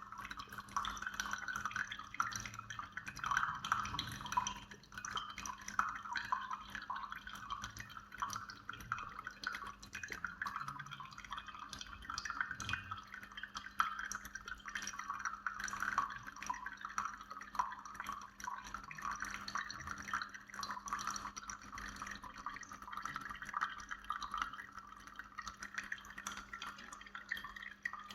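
Single-serve pod coffee maker dispensing coffee into a cup: a continuous trickle and patter of dripping liquid over a steady low hum.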